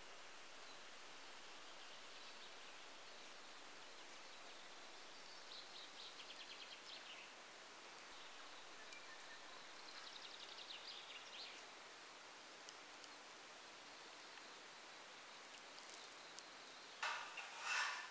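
Faint wet-forest ambience: a steady soft hiss, with two short high rapid bird trills about six and eleven seconds in. Near the end comes a brief louder rustling clatter.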